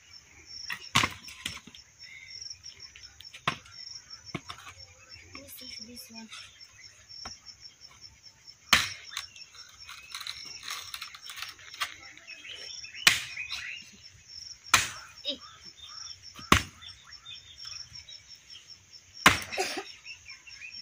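An axe chopping firewood: about eight sharp, uneven blows of the blade into wood, a few seconds apart. A steady high insect chirr runs behind.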